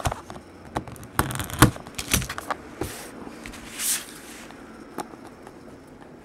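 Scissors snipping the seal on a small cardboard trading-card box, a run of sharp clicks and taps, then the box being handled with two brief swishing scrapes of cardboard about three and four seconds in.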